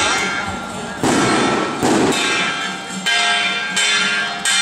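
Hand-held flat gongs struck about once a second, each stroke ringing on into the next. Two of the strokes near the start come with a harsher, rattling crash.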